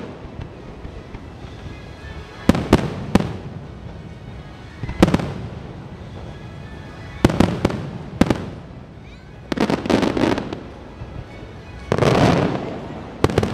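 Aerial fireworks shells bursting: sharp bangs every second or two, some in quick groups of two or three, with a rumbling tail after the bigger ones. The longest and loudest boom comes near the end, with music playing faintly underneath.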